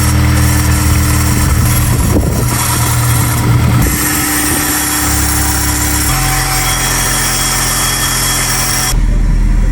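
Honda S2000 car engine running at idle, heard as steady clips cut together; the sound changes abruptly about six seconds in and again near the end.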